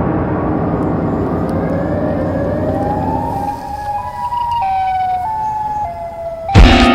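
Film sound design: a deep rumble fades out, then a siren-like wail, the call of the Siren Head creature, rises and steps back and forth between a few pitches. A sudden loud burst of sound cuts in near the end.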